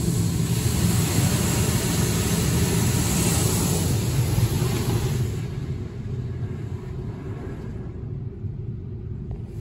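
RYKO UltraSonic 2001 overhead car wash working over the car, heard from inside the closed cabin: a loud, steady rushing hiss over a low rumble. About five and a half seconds in the hiss falls away and it becomes quieter, leaving mostly the rumble.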